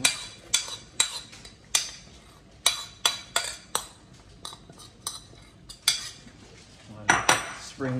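Metal spoon clinking and scraping against a ceramic plate, knocking chopped garlic and onion off into a saucepan: a series of sharp, irregular clinks, with a louder cluster about seven seconds in.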